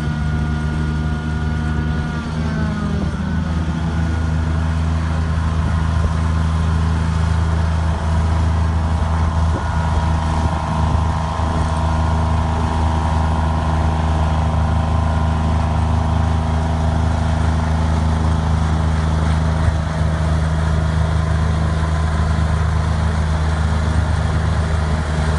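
1984 John Deere 430 garden tractor's three-cylinder Yanmar diesel engine running steadily, its speed easing down slightly about two to three seconds in.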